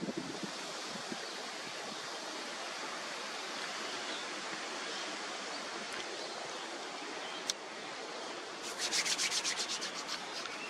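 Steady rushing noise of wind through eucalyptus foliage. A single click comes about seven and a half seconds in, and a quick run of sharp, high ticks, about ten a second, follows for a second and a half near the end.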